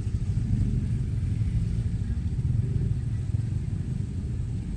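Steady low rumble of a motor vehicle close by.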